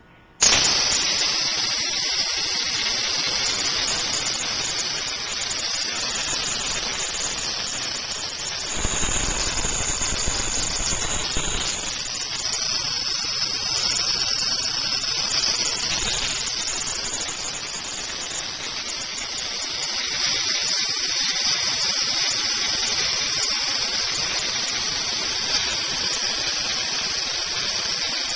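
The spark gap of a high-voltage Tesla hairpin circuit firing continuously. It starts abruptly about half a second in as a steady, hissing crackle that stays very loud.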